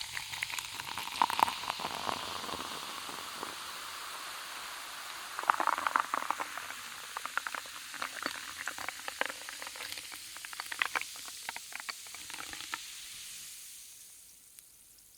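Carbonated soda fizzing in a glass over ice cubes: a steady hiss of bubbles with many small crackles and pops. A louder burst of crackling comes about six seconds in, and the fizz dies away near the end.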